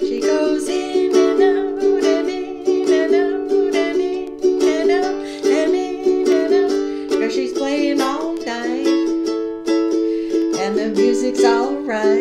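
Ukulele strummed in a steady rhythm, with a voice carrying a wordless melody over the chords.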